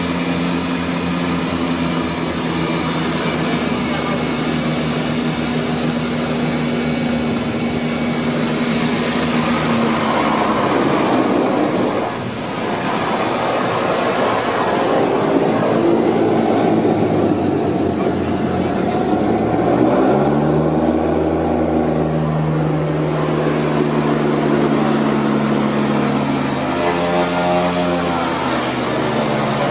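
Twin turboprop engines of a DHC-6 Twin Otter floatplane heard from inside the cockpit, running steadily, then throttled back about ten seconds in as the aircraft alights on the water. Power comes up again near twenty seconds and once more near the end as it runs on the water.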